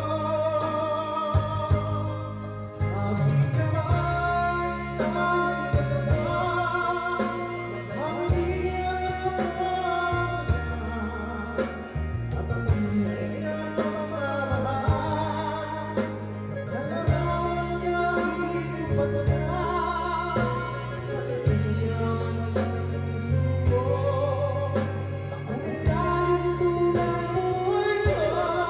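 A man singing into a microphone over backing music with a steady bass line.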